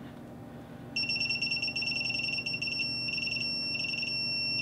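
Digital torque adapter giving a high-pitched steady electronic beep, starting about a second in and holding. This is its signal that the ring-gear bolt being tightened has reached the set torque of about 70 ft-lb.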